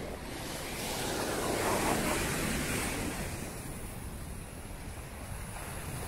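Ocean surf breaking and washing up the beach, one surge swelling about a second in and fading again. Wind buffets the microphone with a low rumble throughout.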